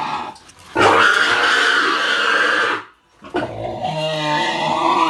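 Adult boar squealing loudly while being castrated: one long squeal, a short break for breath about three seconds in, then another squeal.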